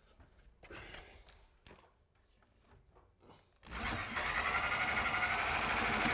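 A corded reciprocating saw with a metal-cutting blade starts suddenly about two-thirds of the way in and cuts steadily into old iron drain pipe, its motor whine climbing a little as it gets up to speed. Before it starts there are only a few faint knocks as the blade is set against the pipe.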